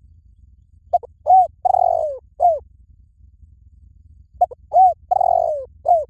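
Spotted dove cooing its song twice: each phrase is a few short, arched coos around one longer coo that falls in pitch, the second phrase starting about three and a half seconds after the first.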